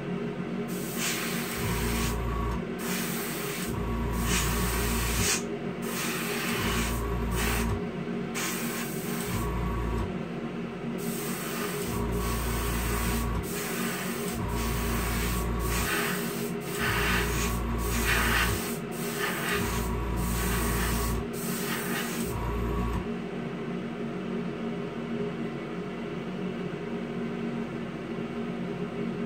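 Airbrush spraying clear coat in short trigger bursts of air hiss, about a second each and a dozen or so in all, which stop about 23 s in. Under them runs the steady hum of the airbrush compressor and the spray booth's exhaust fan.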